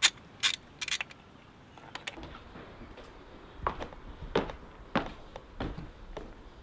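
A socket ratchet clicking a few times as a bolt on the intake plenum is turned, then, from about three and a half seconds in, footsteps on brick paving, about one every half second or so.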